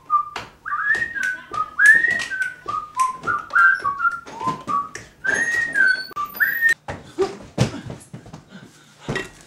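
A person whistling a short tune of held and sliding notes, with sharp clicks scattered through it. The whistling stops about two-thirds of the way in, leaving a few knocks and thumps.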